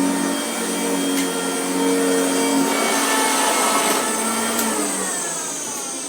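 Vacuum cleaner about 40 years old, its motor running steadily, then switched off about five seconds in, its whine falling as the motor spins down.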